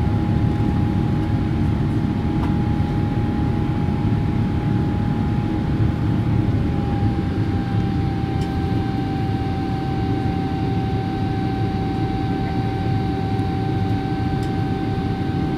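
General Electric GE90-115B turbofan of a Boeing 777-300ER at high thrust in the climb just after takeoff, heard from inside the cabin beside the engine. A deep, steady rumble runs under a steady whine that dips slightly in pitch about seven seconds in.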